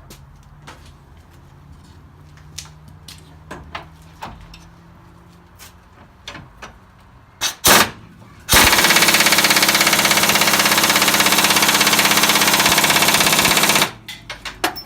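Pneumatic impact wrench hammering on a tight bolt through a socket and extension. It gives two short trigger blips, then a loud, rapid, continuous hammering for about five seconds that stops abruptly, and the bolt does not break loose. Light tool clicks and handling come before it.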